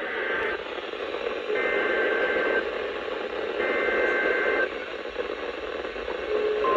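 NOAA Weather Radio SAME alert header: three bursts of two-tone digital data warble, each about a second long, heard through heavy static from a weak radio signal. A long steady alert tone begins right at the end.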